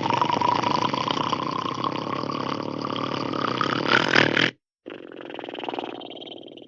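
Hanna-Barbera cartoon snoring sound effect. A long, loud rasping inhale snore rises in pitch and cuts off sharply about four and a half seconds in. After a brief gap comes a quieter exhale with a thin high whistle that fades away.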